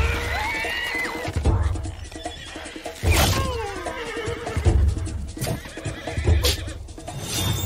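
Horses whinnying twice, once at the start and again about three seconds in, each call falling in pitch, over dramatic soundtrack music with deep drum hits about every second and a half.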